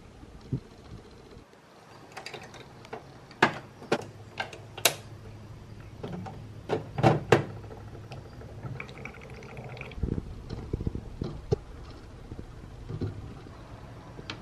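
Scattered sharp plastic clicks and taps from handling Canon ink bottles and the flip-up caps of a Canon G3160 inkjet printer's ink tanks during refilling. A faint low steady hum runs under the middle stretch.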